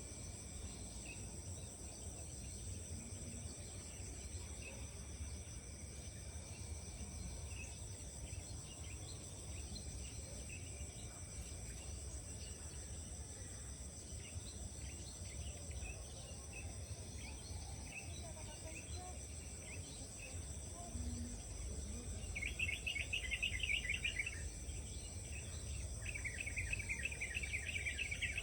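Steady chorus of insects, crickets among them, drones on throughout. Near the end, two louder rapid trilling calls each last about two seconds.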